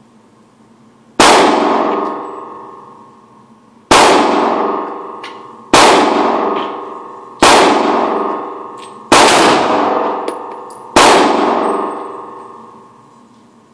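Handgun fired six times in slow, deliberate shots roughly two seconds apart. Each shot is followed by a long echoing decay from the indoor range.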